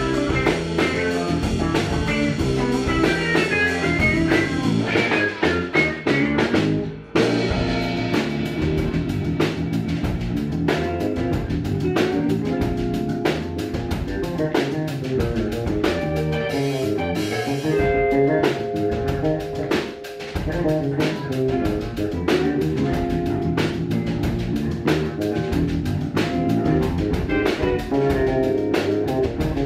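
Electric guitar, electric bass and drum kit playing a jazz-funk tune together as a live trio, with a brief full stop by the band about seven seconds in before the groove picks up again.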